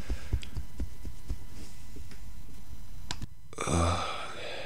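Soft irregular taps and thumps, then a sharp click and a brief dropout, followed about four seconds in by a short, low guttural voice sound from a man.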